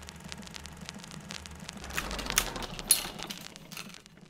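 Old-film crackle sound effect: scattered clicks and pops over a low steady hum. The crackle grows louder and denser about two seconds in, with one sharp pop near three seconds, then fades near the end.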